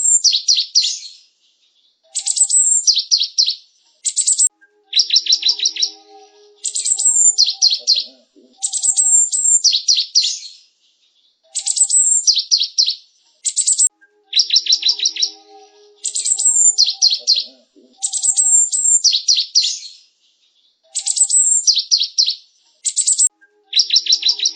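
Cinereous tit (gelatik batu) singing: short bursts of quick, high, repeated notes with sharp chirps on top, one phrase about every two seconds with brief pauses between.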